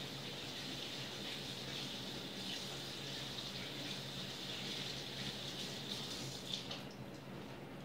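Water running from a tap into a sink while hands are washed, a steady hiss that stops near the end. A steady low hum runs underneath.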